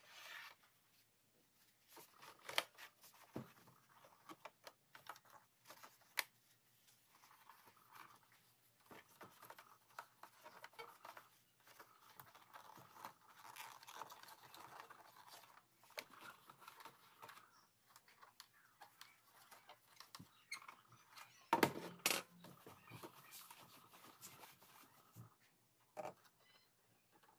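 Tissue paper rubbing and wiping over a cassette boombox's plastic cabinet: soft rustling and crinkling with scattered light taps and clicks, and a louder burst of handling about three quarters of the way through.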